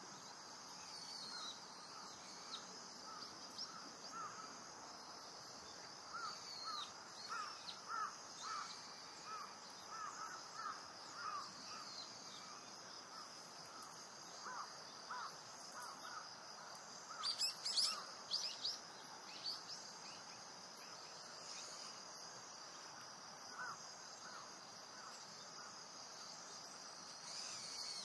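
A steady chorus of insects, with series of short bird calls repeating about twice a second and one louder, sharper burst of calls about seventeen seconds in.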